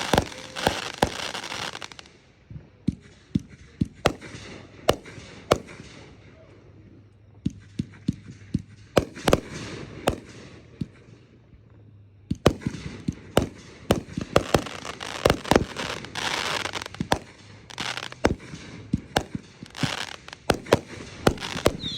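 Fireworks going off: a run of sharp bangs with stretches of dense crackle near the start and through the second half, and only scattered bangs in a quieter spell in the first half.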